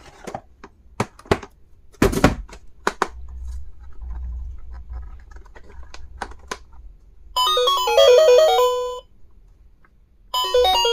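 Sharp clicks and taps of plastic items being handled, then a small electronic toy plays a beeping chime-like tune twice, a short phrase of stepped notes starting about seven seconds in and another near the end.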